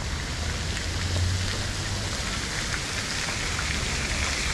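Steady hiss of falling, splashing water, with a low hum underneath.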